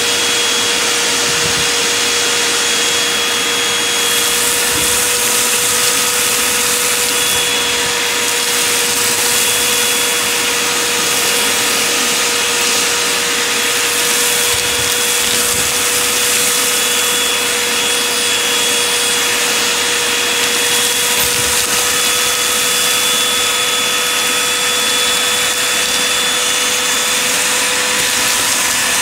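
Vacuum cleaner running steadily with a high whine, its bare hose end sucking up a pile of dust and grit from a wooden floor. The crackle and rattle of grit going up the hose turns livelier after the first few seconds.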